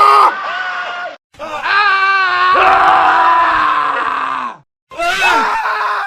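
Several different men screaming, one clip after another, separated by brief dead-silent cuts. The longest scream in the middle is held for about three seconds, wavering in pitch at its start before sliding down.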